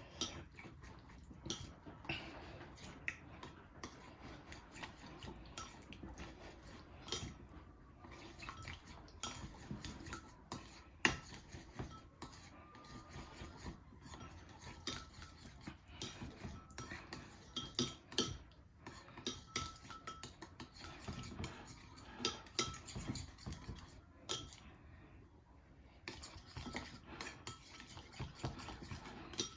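A utensil stirring a barbecue pork marinade of soy sauce, oyster sauce, wine and oil in a bowl, clinking and scraping against the bowl in irregular taps, with a short pause near the end.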